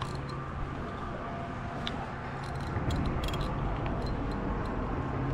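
Steady low hum of traffic on the bridge, with a few scattered sharp clicks from fishing tackle while a hooked fish is fought on the line.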